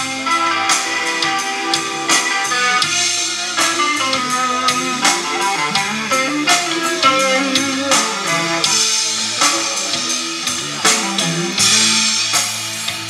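Live rock band playing an instrumental passage: electric guitar, electric bass and drum kit, with no vocals.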